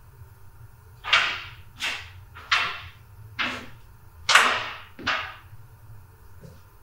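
A man's heavy, ragged breathing: six loud breaths in quick succession, less than a second apart.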